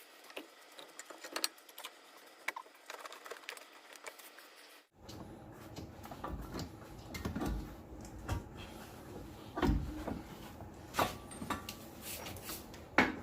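Scattered metallic clinks and knocks as a Dodge Ram 1500 CV axle is worked out of the front hub and knuckle, with a louder knock near the end.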